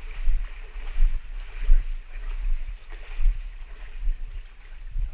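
Irregular low bumps and rumbles of a body-worn camera being carried over rock, about every half second, over a steady rush of running water.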